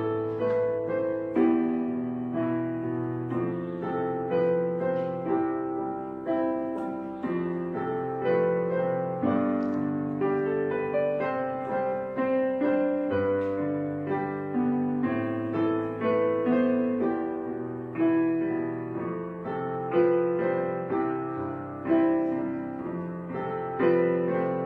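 Background piano music: slow, soft piano with notes and chords struck about every second.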